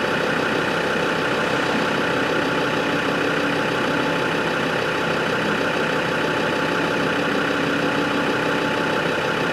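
Land Rover Discovery Td5's five-cylinder turbodiesel engine idling steadily.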